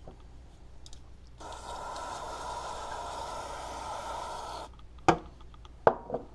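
Aerosol contact cleaner sprayed through its straw onto a circuit board: one steady hiss of about three seconds that starts and stops abruptly. Then two sharp knocks close together near the end, louder than the spray.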